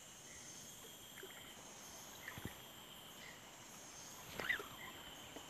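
Faint, steady high-pitched buzzing of an insect chorus, with a soft knock about halfway through and a short squeak near the end.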